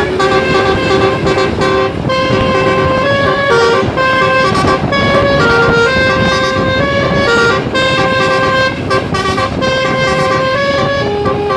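Basuri telolet bus horns playing a tune: a run of held horn notes stepping up and down in pitch, sometimes two notes at once, over the noise of bus engines and traffic.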